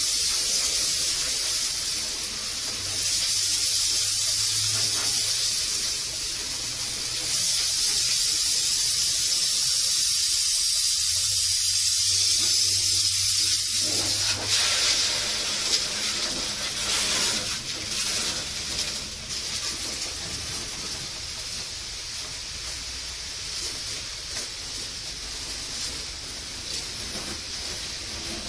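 Water jet from a hose spraying against the tracks and metal body of a combine harvester: a loud, steady hiss that weakens and turns more uneven, spattering, about halfway through.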